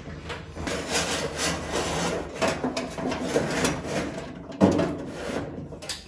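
Wiring harness and cable dragging and rubbing through a slot in a car's metal dashboard as it is pulled and fed by hand, with a sharper knock about four and a half seconds in.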